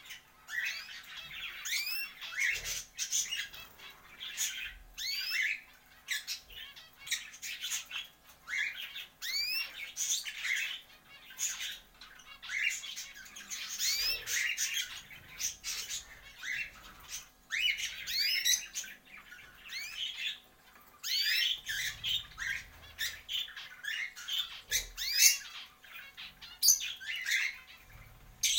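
Many small cage birds chirping and squawking continuously, a dense chatter of short rising notes.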